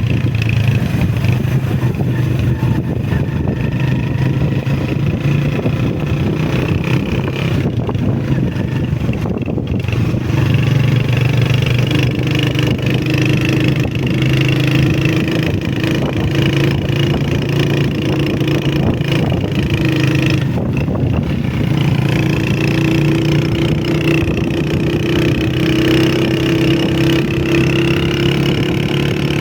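Honda CG125's single-cylinder four-stroke engine running steadily under way, its note rising and falling slightly as the throttle changes.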